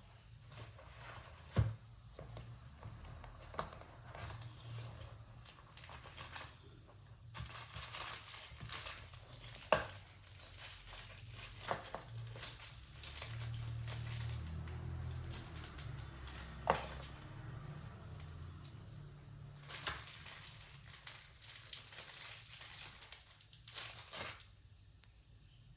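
Packaging being handled during an unboxing: stretches of crinkling and rustling, with a few sharp knocks as pieces are set down. The sounds stop a second or so before the end.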